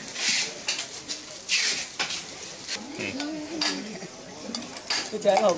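Utensils and dishes clinking and clattering as they are handled, in scattered sharp clicks, with two short hissing rustles in the first two seconds.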